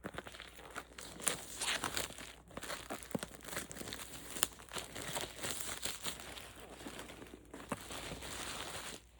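Packaging crinkling and tearing as a cardboard subscription box is worked open by hand, an irregular stream of crackles that stops shortly before the end.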